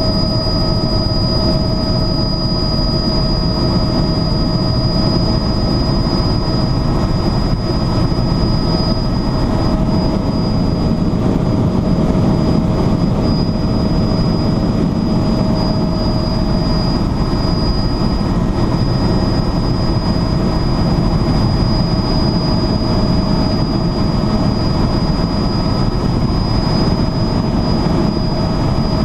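Tour helicopter in flight, heard from inside the cabin: a steady, loud rotor and engine rumble with a constant high whine over it, unchanging throughout.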